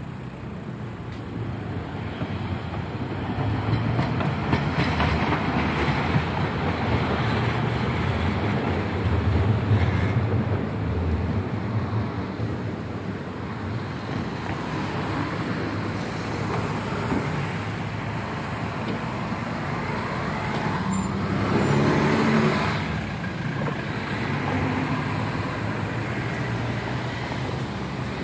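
Street traffic at a city intersection: cars driving past with engine and tyre noise, rising and falling as each goes by, loudest with one vehicle passing about three quarters of the way in.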